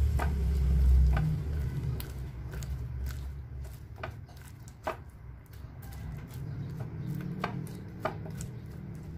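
Thick slime being kneaded and folded by hand in a glass bowl: sticky squelching with scattered sharp little pops, and a low rumble over the first second or so.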